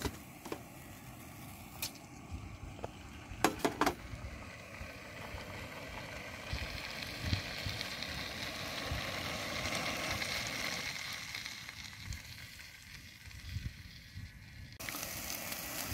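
Chicken pieces frying in a pan on a camping gas stove: a faint sizzle that swells and then fades. A few sharp knocks come about three and a half seconds in.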